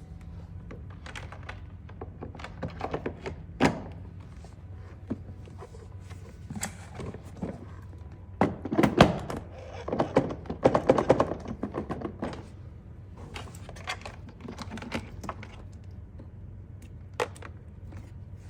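Irregular knocks and clunks of hard parts being handled and fitted, busiest about halfway through, over a low steady hum.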